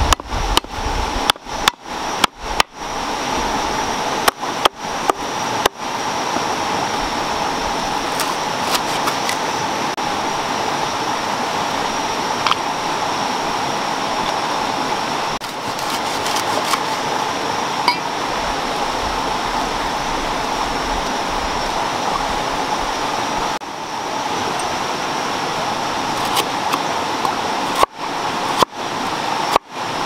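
A rushing stream runs steadily, with a large knife chopping lemongrass and galangal on a wooden board in quick runs of sharp knocks during the first few seconds and again near the end.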